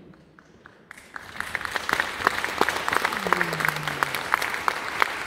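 Audience applauding. It starts with a few scattered claps and fills out about a second in into steady, dense applause.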